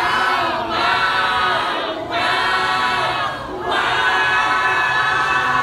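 Mixed high school chamber choir singing unaccompanied in close harmony. Phrases break off briefly about two and three and a half seconds in, then the choir holds one long chord to the end.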